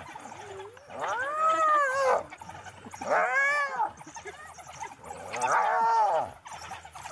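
Hyena giving three drawn-out squealing calls about two seconds apart, each rising then falling in pitch.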